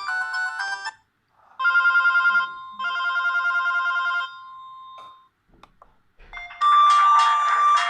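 Audiovox CDM 8400 cellphone ringtones played through a Brionvega N7010. A beeping melody stops just before a second in, then comes a trilling two-burst ring like an old telephone bell, rapid pulses on two pitches. After a few faint clicks, a new, louder pulsing ringtone starts near the end.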